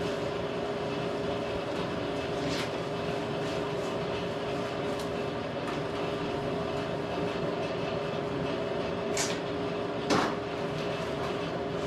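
Steady machine hum with several fixed tones in a workshop, with a few brief scuffs and a knock from a rag being rubbed over the lathe's metal, twice close together near the end.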